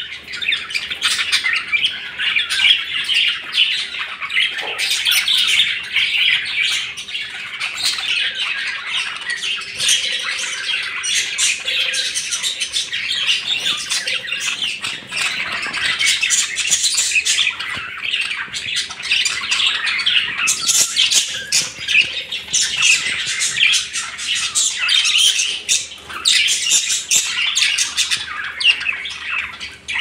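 A flock of budgerigars chattering without a break, a dense stream of overlapping high chirps and squawks.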